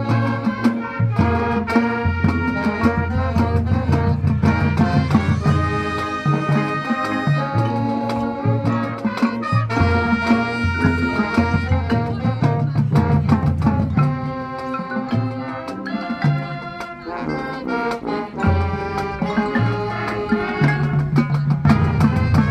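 Marching band playing: brass ensemble chords and low brass lines over marching percussion. It eases off briefly about two-thirds of the way through, then builds back up.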